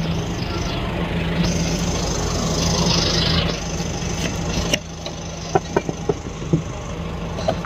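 A car engine running steadily for the first four and a half seconds, then a quieter stretch with several short clicks as a car's door handle is pulled and the door opened.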